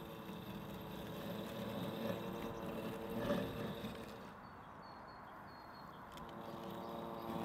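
Husqvarna robotic lawn mower running across grass: a steady motor hum, with a brief louder noise about three seconds in.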